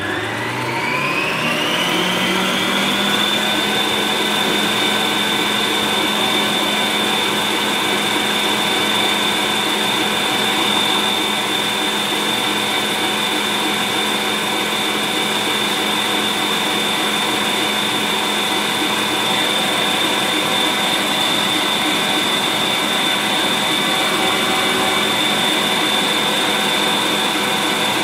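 Electric stand mixer with a wire whisk beating double cream. The motor's whine rises as it comes up to speed over the first few seconds, then runs steadily.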